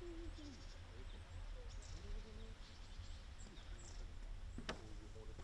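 Small birds chirping in short, high calls over a low steady rumble, with faint distant voices. One sharp click sounds near the end.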